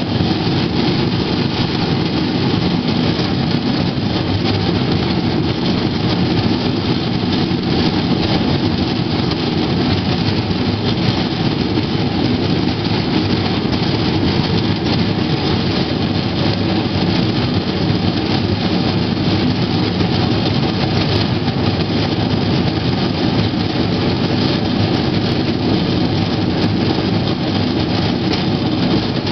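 Steel wheels of a pedal-powered rail bike rolling along old, rusty track: a steady, loud rolling rumble with scattered small clicks.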